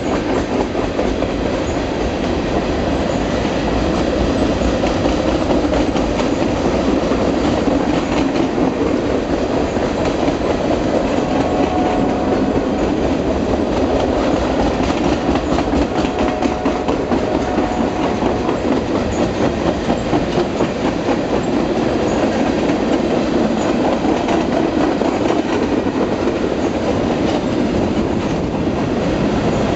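Freight train cars, boxcars and tank cars, rolling past close by: steel wheels clicking over the rail joints under a steady rumble and rattle of the cars.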